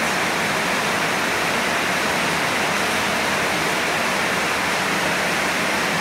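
Steady rush of running water, an even hiss that does not change.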